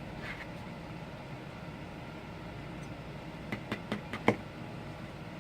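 A quick run of about five small sharp clicks and taps from a hand tool working at the glass of a phone screen, the last one loudest, over a steady low hum.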